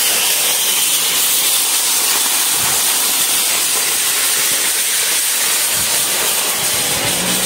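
A loud, steady hiss with no breaks, strongest in the high range.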